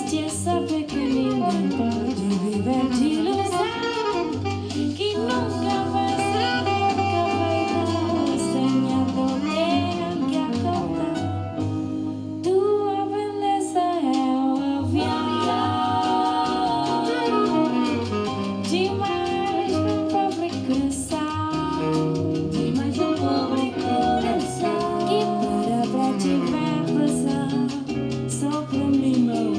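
A song with a singer and a band, played back through home-built coaxial speakers (a stiff-suspension woofer with a tweeter fitted in a small box) and picked up by a camera microphone, which makes it sound bright and treble-heavy.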